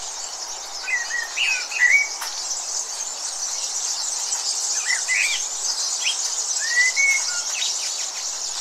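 Steady high-pitched insect chorus, with short bursts of bird chirps about a second in, around five seconds in and near seven seconds.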